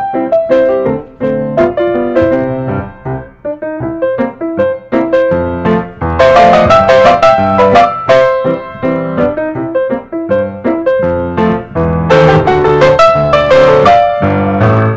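Background piano music: a run of quick notes over chords, growing louder about six seconds in and again about twelve seconds in.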